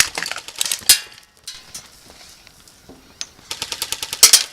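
Airsoft guns firing in rapid bursts of sharp clicks: one burst in the first second, a lull, then another rapid burst starting about three and a half seconds in.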